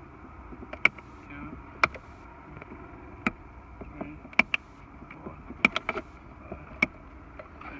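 Hand-held side cutters snipping through plastic zip ties on a wiring bundle: a series of sharp snips, roughly one a second, some in quick succession.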